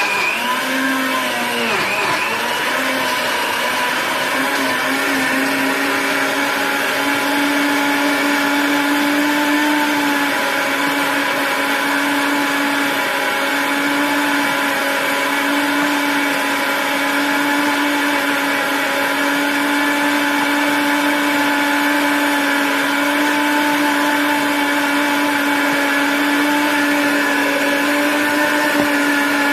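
A countertop blender runs continuously, puréeing tomato, onion and garlic. It makes a loud, steady motor whine that wavers for the first couple of seconds and then holds an even pitch.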